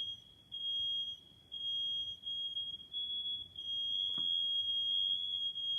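Smoke alarm's piezo horn sounding its test tone, a single high pitch. It gives a couple of beeps about a second apart, then falters and stutters before holding a steady tone near the end, with a click about four seconds in. The piezo barely works and the owner says the alarm needs to be replaced.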